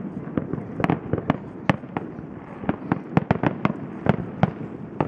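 Fireworks going off in a rapid, irregular barrage of sharp bangs, several a second, over continuous crackling.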